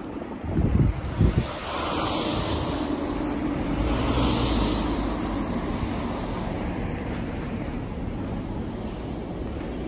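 A low engine rumble from a passing vehicle, swelling and then holding steady, mixed with outdoor noise. Two heavy low thumps come about a second in.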